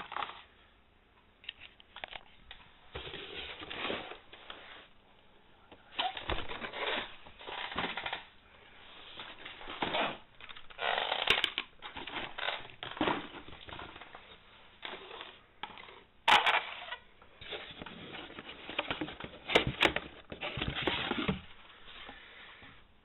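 Handling noise from a cardboard box and blister-carded die-cast toy cars being rummaged through: irregular rustling, crinkling and scraping with a few sharp knocks, the loudest about 16 and 20 seconds in.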